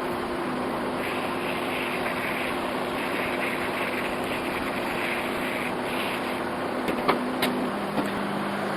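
Hot air gun blowing steadily, with a steady motor hum, drying cleaning thinner off the pins of a motherboard's CPU socket. A few clicks come near the end, and the hum drops lower just before the end.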